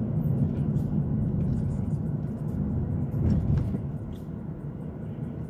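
Road and engine noise heard from inside a moving car's cabin: a steady low rumble that eases off about four seconds in.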